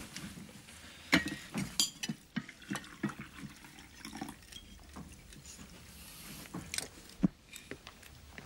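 Tableware at a breakfast table: an irregular series of small clinks, taps and knocks of cutlery, cups and plates being handled.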